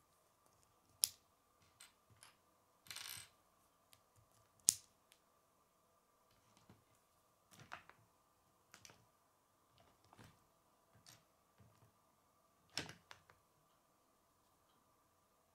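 Small plastic Lego bricks clicking and tapping as they are handled and pressed together: a few sharp clicks spread out, with a brief scratchy rustle about three seconds in. A faint steady hum lies underneath.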